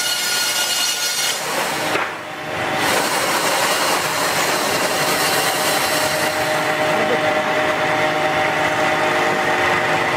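Power saw machinery cutting wood: a steady mechanical whine and rasp, with a short break about two seconds in.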